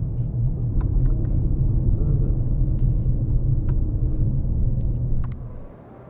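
Engine and road rumble of a car driving slowly, heard inside the cabin, with a few faint clicks. It cuts off suddenly about five and a half seconds in, leaving a much quieter indoor background.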